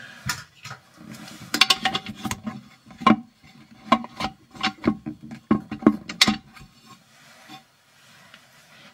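A quick series of clinks and knocks from objects being handled close to the microphone, thick through the middle and dying away in the last couple of seconds.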